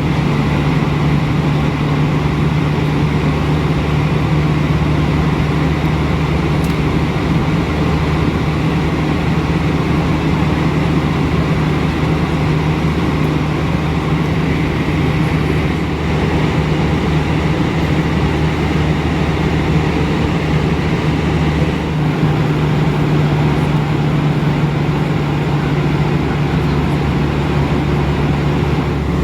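Steady cabin noise of an Airbus A320 in flight: engine and airflow drone, a constant low hum under an even hiss.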